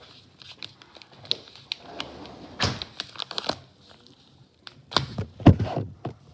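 Plastic MRE packaging crinkling and rustling as it is handled, in short scattered rustles and clicks, louder about two and a half seconds in and again about five seconds in.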